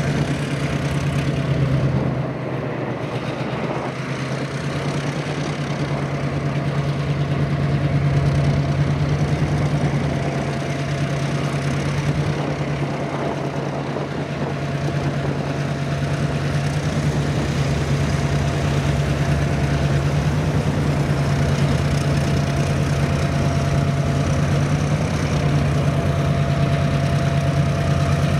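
A lash-up of diesel-electric locomotives (a Clyde EMD and three ALCO-engined units) moving slowly under power with a loaded train, a steady low engine drone. A thin whine comes and goes above it.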